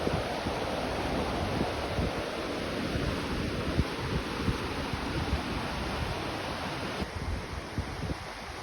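Ryūzu Falls, a waterfall, rushing steadily with a full hiss of falling water, with low rumbling of wind on the microphone. About seven seconds in the sound turns duller as its upper hiss drops away.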